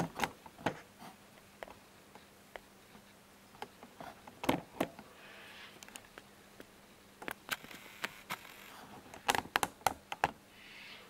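Scattered light clicks and knocks of plastic parts being handled on a workbench, with faint rustling between them.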